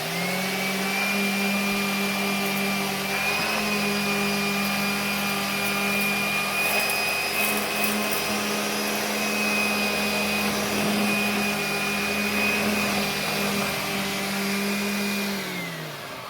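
Numatic George GVE 370-2 1000-watt wet-and-dry vacuum cleaner running steadily with its turbo brush head on a hard floor: a high whine over a lower motor hum. Near the end it is switched off and winds down, the pitch falling.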